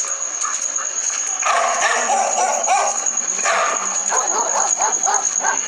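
Dog sound effect: a dog barking and yipping in several bursts, over a steady high-pitched tone.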